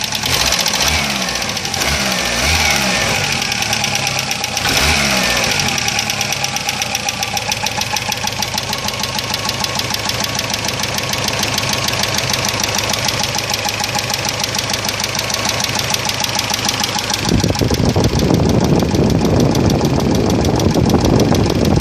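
Chery Amulet engine knocking as it runs. It is revved up and down a few times in the first six seconds, then runs steadily, and gets louder and rougher about 17 seconds in. The cause of the knock is undiagnosed.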